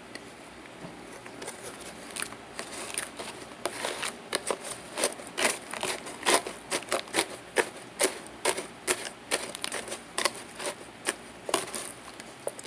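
Dry lumps of starch crunching and crackling, a quick irregular run of sharp crisp snaps that starts about a second and a half in and goes on until just before the end.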